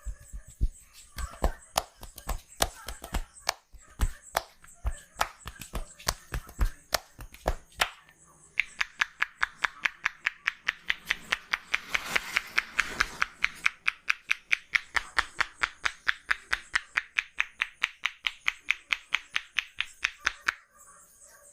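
Hand-percussion massage strokes on a person's body: irregular, deeper slaps at first, then from about eight seconds in a fast, even run of sharp hand strikes, about four a second, that stops shortly before the end.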